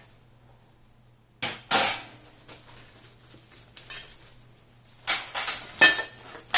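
Small metal kit parts clinking and rattling as they are handled: one clatter about a second and a half in, then several more near the end.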